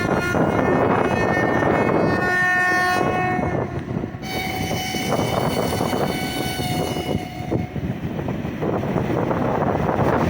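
Electric locomotive horn sounding long blasts for about seven and a half seconds, the chord changing twice, over the rumble of a passing freight train and wind; after the horn stops, the train runs on steadily.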